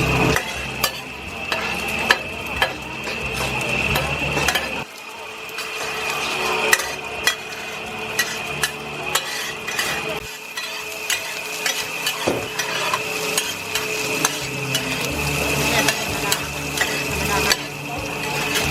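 Food sizzling in a pan as a metal utensil stirs it, with frequent sharp clicks and scrapes of the utensil against the pan.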